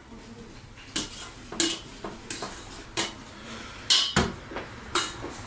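Metal mixing bowl clinking and scraping as dough is worked loose from it: about seven sharp knocks at irregular intervals, the loudest near four seconds in.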